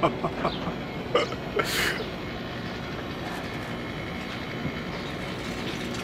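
Electric vacuum pump running steadily while it pulls a deep vacuum on a car air-conditioning system before the refrigerant charge, with the gauge near −26. A few light clicks and a brief hiss come in the first two seconds.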